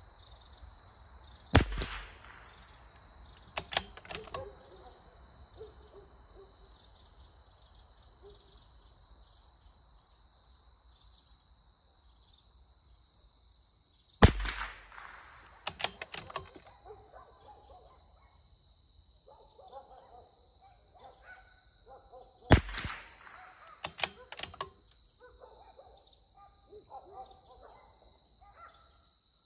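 .22 LR rimfire shots from a CZ 457 Varmint bolt-action rifle: three sharp cracks about eight seconds apart. Each is followed about two seconds later by a quick series of metallic clicks as the bolt is worked to eject the case and chamber the next round.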